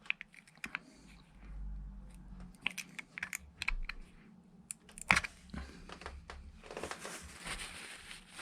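A series of small, irregular clicks and taps, with one louder knock about five seconds in, then a rustling hiss near the end.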